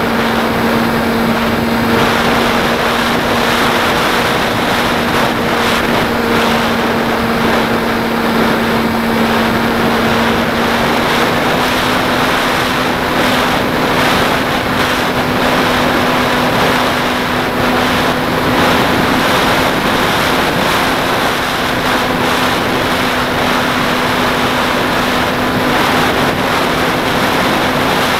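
Model airplane's motor and propeller running at a steady speed, a constant hum heard from on board, with wind rushing over the onboard camera; the pitch edges slightly higher about eleven seconds in.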